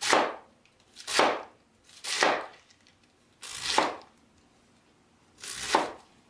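Chef's knife slicing through a quarter head of raw green cabbage onto a plastic cutting board: five separate cuts, about one a second at first, then spaced further apart.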